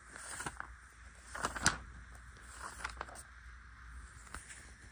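Faint rustling with scattered light clicks and knocks over a low steady hum, the strongest click about a second and a half in.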